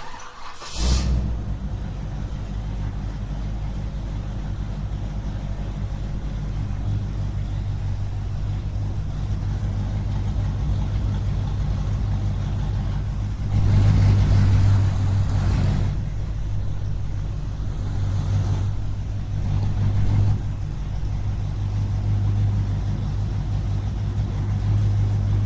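Car engine started: a short burst of cranking that catches within about a second, then the engine idles steadily. It runs louder for a couple of seconds about halfway through and briefly again a little later, as if revved lightly.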